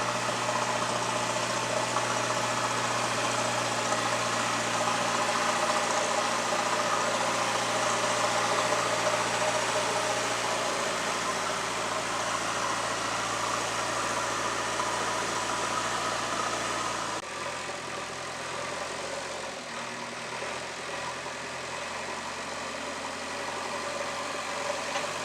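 JCB 3DX backhoe loader's diesel engine running steadily; about seventeen seconds in its note shifts and it gets slightly quieter.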